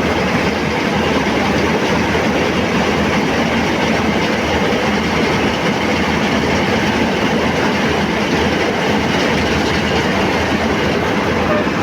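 John Deere combine harvester's engine and threshing machinery running steadily.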